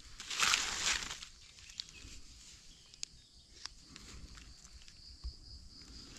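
Dry fallen leaves rustling as gloved hands sweep the leaf litter aside and a knife digs a small red mushroom out of the soil. The loudest rustle comes about half a second in, followed by quieter scraping and a few sharp light clicks.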